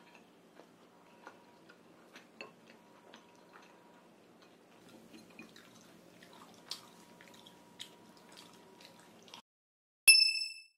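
Faint eating sounds while a burger is eaten: soft chewing with small mouth clicks and smacks, which stop about nine seconds in. Near the end a single bright chime rings out, loud, and fades within about half a second.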